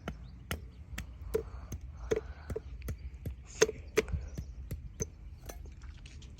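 A run of sharp knocks, about two to three a second, some with a short ring.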